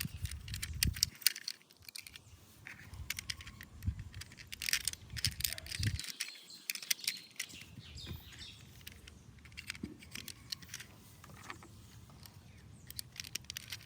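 Small plastic toy parts being handled and fitted together, giving irregular light clicks and rattles.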